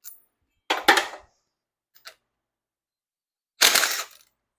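Sharp metal-on-metal strikes while working on a Ford 460 V8 engine: a quick double strike about a second in, a light click, then a single heavier strike near the end, each ringing briefly.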